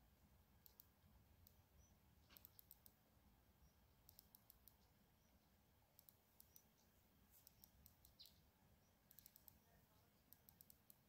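Near silence: a faint steady background with soft, high clicks in quick runs of two to five, every second or two.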